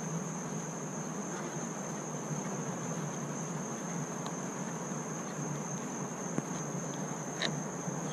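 Crickets trilling steadily, with a couple of faint clicks from an Allen wrench turning the awning motor's mounting screws.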